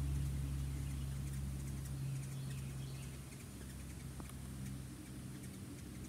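A hummingbird hovering close by: the low hum of its wings, fading after about two seconds as it moves off, with a few faint high chirps.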